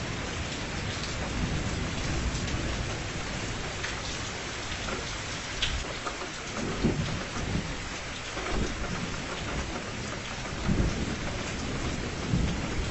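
Steady rain with low thunder rumbles swelling up a few times, mostly in the second half.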